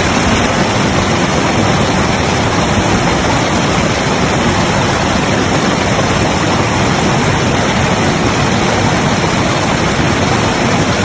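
Waterfall's rushing water, a loud steady roar with no let-up.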